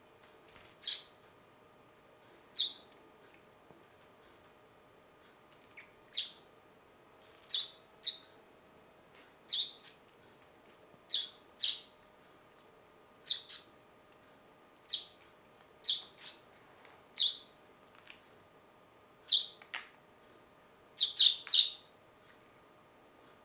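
Tame Eurasian tree sparrow chirping repeatedly: short, high chirps, single or in quick pairs, every second or so, with a fast run of three chirps near the end.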